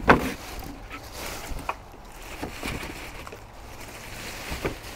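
Clear plastic packaging bag crinkling and rustling as the barbecue's parts are handled and pulled out. A sharp knock right at the start is the loudest sound, with a few lighter clicks and knocks after it.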